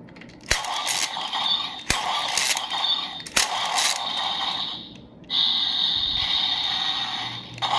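Toy sword's lever pulled three times, each pull a sharp click about a second and a half apart, with electronic sound from its small speaker. From about five seconds in a longer electronic sound effect plays, set off by the third pull.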